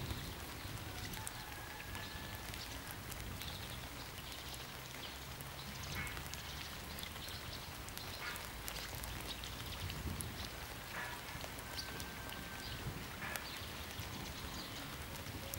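Light rain falling steadily, with scattered short bird chirps and a few thin whistles over it.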